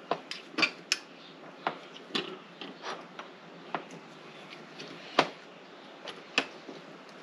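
Irregular metal clicks and light knocks of an AN hose fitting being clamped in a bench vise with aluminum jaws and worked on with tools, the sharpest knock about five seconds in.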